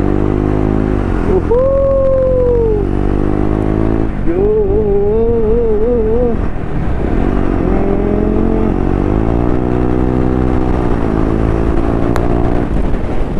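KTM 250 Duke motorcycle engine running under way at a steady speed, its pitch dipping and climbing again around the middle. Twice a person's voice gives a drawn-out, wavering note over it.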